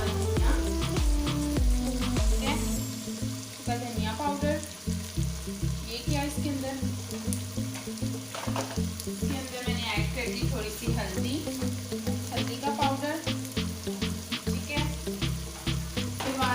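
Brains frying in hot oil with onions and ginger-garlic paste in a pot, sizzling steadily while a spoon stirs and scrapes, with many short clicks. Background music with a stepping bass line plays under it.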